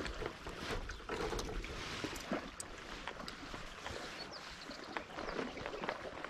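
Small waves lapping and sloshing, with scattered light clicks and taps.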